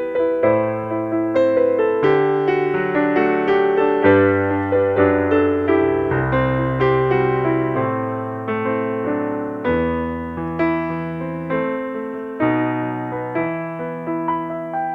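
Piano playing a gentle instrumental passage: struck melody notes and chords decaying over held bass notes, with no singing.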